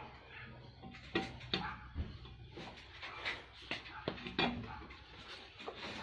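A dog barking several times in short, separate barks, with a person's voice calling as the dog is chased.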